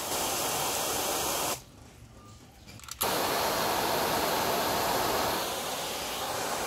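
Garden hose spray nozzle hissing as it sprays water over a mountain bike's handlebar-mounted cycling computer and then its front wheel, fork and spoke sensor. The spray stops about one and a half seconds in and starts again abruptly about a second and a half later.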